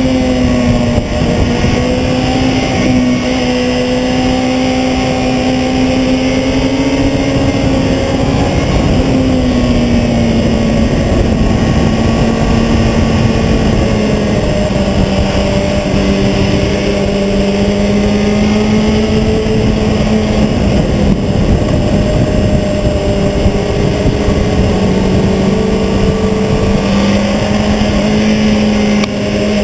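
Sport motorcycle engine running hard at high revs on a racetrack, heard with heavy wind and road noise from a camera on the fairing by the front wheel. The engine note holds high and shifts up and down with throttle and gear changes, dipping about a second in and again near nine seconds.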